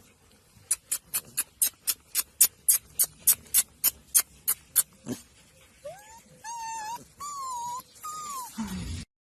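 A run of about fifteen sharp, evenly spaced clicks, roughly four a second, followed from about six seconds in by a dog whining in three or four short, high, rising-and-falling cries.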